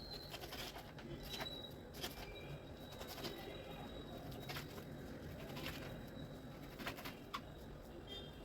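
Faint bird calls over low background noise, with scattered light clicks and taps.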